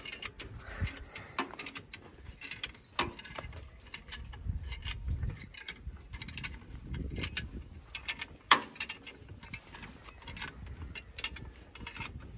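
Spanner working the bolts of a tractor's steel front mounting plate: scattered metallic clicks and clinks of the tool on the bolt heads. The sharpest clink comes about eight and a half seconds in.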